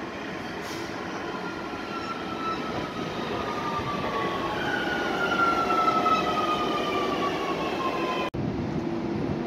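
Metrovalencia electric train running past close by on the rails, its traction motors whining in several tones that fall steadily in pitch as the train slows, over the rumble of wheels on track. It grows louder toward the middle as the cars pass.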